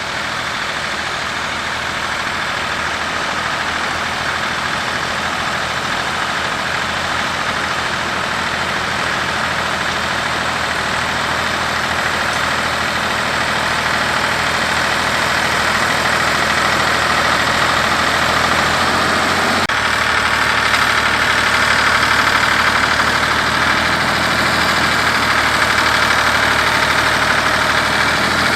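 Ford 3000 tractor's three-cylinder engine running steadily at low revs, growing gradually louder.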